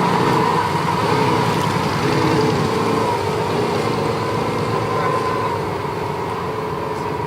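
Lamborghini engine running steadily with a constant droning tone and no revving, easing slightly in level near the end.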